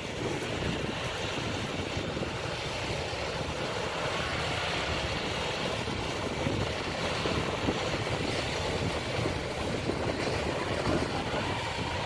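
Yanmar AW82V rice combine harvester running steadily at a distance: an even engine rumble with a hiss over it, holding steady without pauses.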